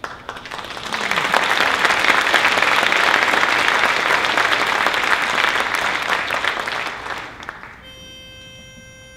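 Audience applauding, swelling quickly and dying away after about seven seconds. Near the end a steady pitched note begins and holds.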